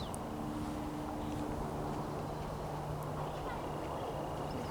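Steady low hum under an even outdoor background hiss, with a faint high thin tone in the second half.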